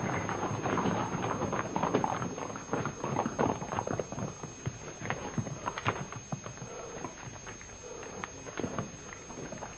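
Horses' hooves and chariot wheels clattering on a paved street, an irregular scatter of sharp knocks that gradually dies down as the chariots come to a halt.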